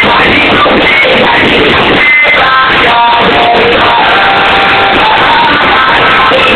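Rock music with guitar and singing played loud through a car sound system driven by Magnum amplifiers into Pyramid speakers, during a volume test.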